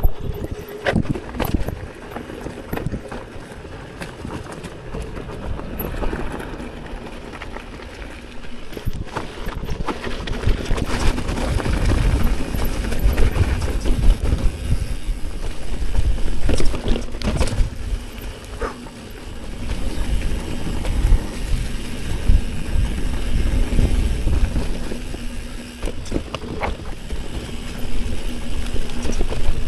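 Mountain bike riding a leaf-covered dirt trail: tyres running over dirt and leaves, with the bike clattering over rocks and roots and a low rumble that swells and fades.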